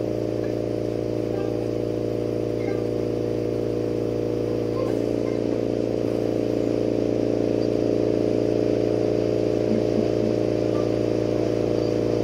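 Steady mechanical hum of several fixed tones, like running studio equipment, with the tones shifting slightly about five seconds in.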